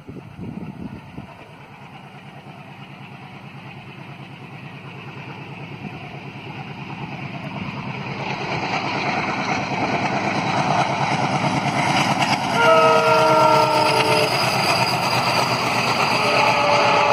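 Indian Railways WDM3D diesel-electric locomotive approaching with a passenger train, its engine and the rolling train growing steadily louder. Its horn sounds twice, a chord of several tones held about a second and a half each: the first about twelve seconds in, the second near the end.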